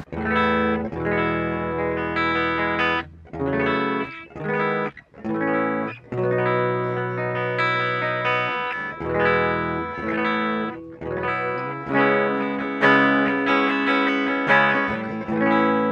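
Electric guitar played through a Korg AX3000G modelling processor on its 'BTQ CL' clean amp preset with no other effects, sustained chords and single notes ringing with a few short breaks between phrases.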